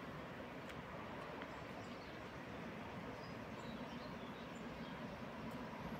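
Steady outdoor ambient noise with a few faint, short bird chirps.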